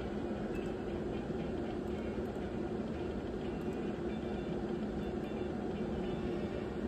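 Steady low hum over even background noise, unchanging throughout, with faint scattered high ticks.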